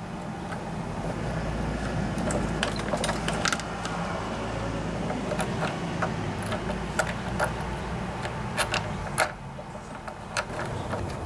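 Irregular small metal clicks and taps as a washer and bolt are handled and fitted into a lawnmower's handle bracket, over a steady low hum.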